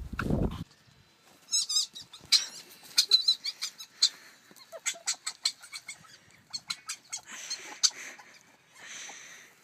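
A loud low rumble cuts off about half a second in. After it comes a pet animal's high, wavering squeaks among quick sharp clicks and scuffles, with two short hissing noises near the end.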